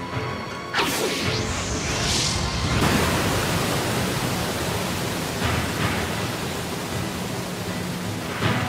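Cartoon sound effect: a sudden whoosh about a second in, then a steady rushing noise, with faint music underneath.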